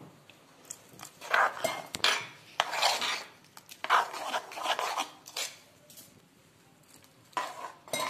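A spoon stirring and scraping gram-flour batter in a metal bowl, clinking against the sides in irregular strokes about a second apart, with a short pause before the last strokes. The batter is mixed to a thin pouring consistency.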